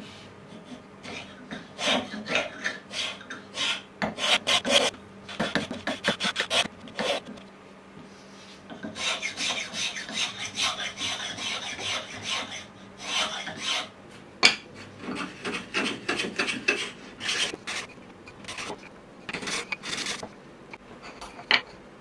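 Metal spokeshave shaving a hardwood handle blank, in runs of quick rasping strokes with short pauses between them. One sharp knock about two-thirds of the way through.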